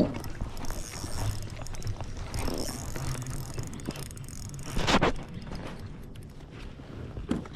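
Fishing reel's drag clicking and ratcheting as the hooked fish pulls line and the reel is cranked, the drag set too loose. A brief louder burst of noise about five seconds in.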